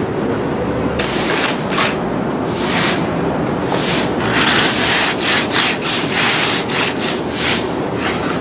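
Hand trowel scraping and smoothing wet concrete in a step form: a series of short scraping strokes, coming faster from about halfway through.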